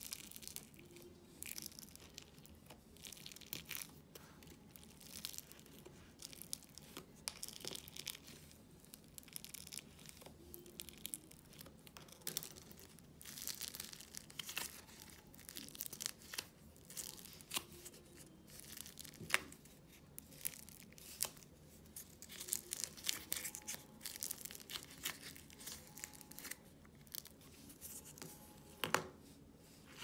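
Soft, fluffy air-dry clay being stirred with a small plastic tool and pulled and squeezed by hand in a plastic tub, making irregular sticky crackling and tearing sounds. There is a sharper knock near the end.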